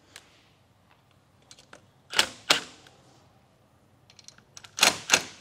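Cordless drill/driver run in short sharp bursts, a pair about two seconds in and another near the end, backing out the structural screws that hold a railing post's base plate. Faint small clicks come between the bursts.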